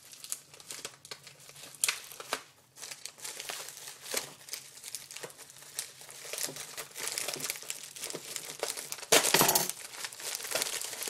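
Plastic mailer bag crinkling and crackling as it is handled and pulled at to open it, with a louder ripping burst about nine seconds in.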